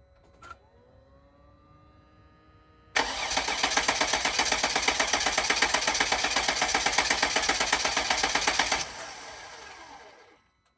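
Starter cranking the newly installed 3.0 L V6 diesel of a 2007 Sprinter, a rhythmic pulsing of about four beats a second as it turns the engine over for about six seconds without it catching. It then cuts back and winds down.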